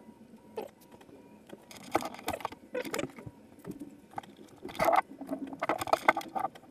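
Irregular clicks, knocks and rustles from hands handling clear plastic tubing and metal hose fittings while a water-cooling loop is connected up.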